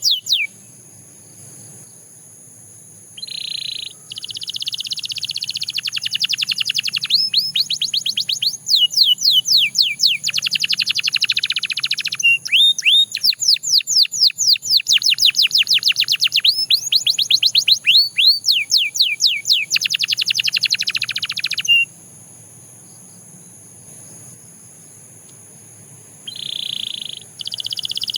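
Domestic canary singing long phrases of rapid trills, with fast runs of repeated falling notes. The song breaks off for a couple of seconds near the start and again about two-thirds through, and a new phrase begins near the end. Faint steady high tones sound underneath.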